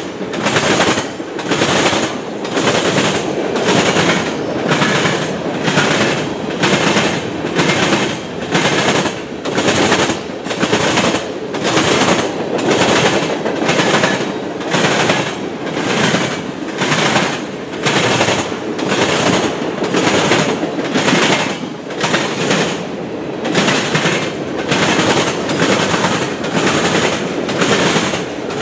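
Freight cars of a manifest train (tank cars, covered hoppers, gondolas) rolling past close by, their steel wheels clacking over the track in a steady, rapid rhythm. The clatter swells and fades about every couple of seconds as each car's wheel sets pass.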